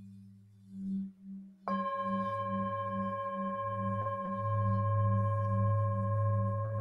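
Tibetan singing bowls. A low hum pulses about three times a second, and then about one and a half seconds in a bowl is struck with a mallet and rings on in a steady, bright tone with several overtones. A lighter strike follows around four seconds in.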